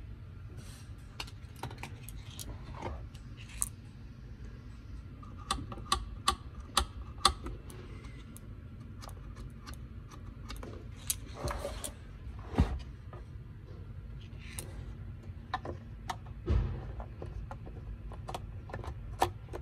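Small hard parts and tools being handled: irregular clicks, taps and clatter, with a duller knock about three-quarters of the way through, over a low steady hum.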